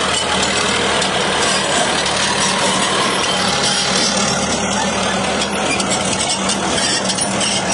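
Caterpillar D7 crawler tractor's diesel engine idling steadily.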